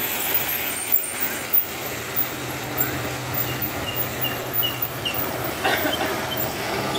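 Mitsubishi Fuso light truck's diesel engine running steadily as the truck pulls past and away up a wet road, with motorcycles going by. A brief rattle comes about six seconds in.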